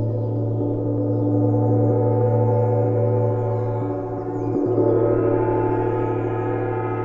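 Large gong played continuously with two mallets: a sustained wash of many ringing tones over a deep hum. It swells, eases about four seconds in, then swells again.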